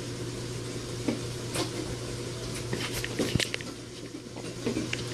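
Soft handling noises, scattered clicks, taps and rustles, as a card and the camera are moved about by hand, over a steady low hum.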